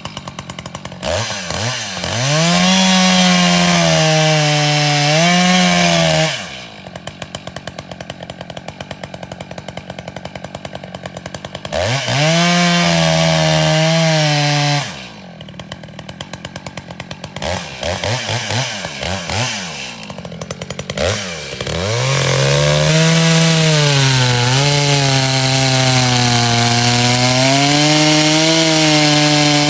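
Echo CS600P two-stroke chainsaw alternating between idle and full throttle: it revs up three times, the last a long run to the end, with the engine pitch sagging and recovering as the chain bites into wood, plus a few short throttle blips at idle in between.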